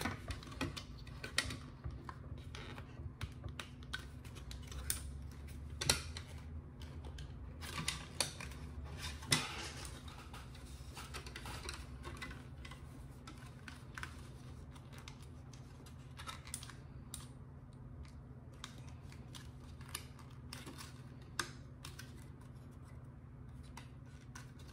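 Scattered clicks and knocks of the hard plastic body and chassis of a Kenner Ecto-1 toy car as they are handled and worked apart, the tabs of the rear body being prised free, over a low steady hum.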